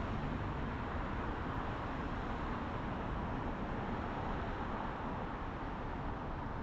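A car driving along: steady rushing road noise, even throughout with no distinct events.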